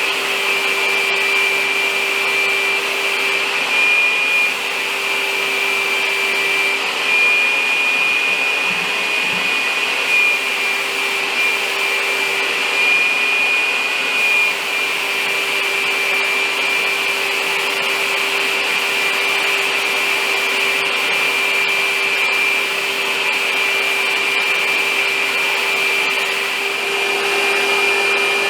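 Electric paint sprayer running steadily while spraying black paint: a constant motor whine with a high tone over a wide hiss, swelling a little in level now and then.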